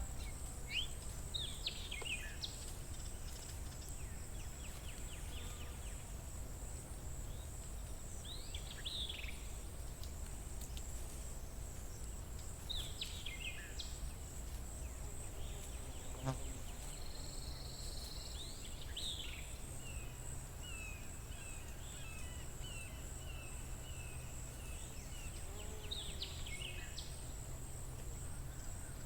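Birds singing outdoors: short falling phrases every few seconds, and a quick run of repeated chirps about two-thirds of the way through. A steady high-pitched buzz and a low rumble run underneath.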